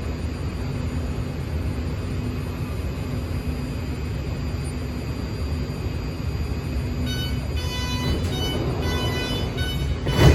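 BART Fleet of the Future train car's door chime: a run of short electronic tones, repeated, starting about two-thirds of the way in, over the car's steady low hum. A sharp loud thump comes right at the end.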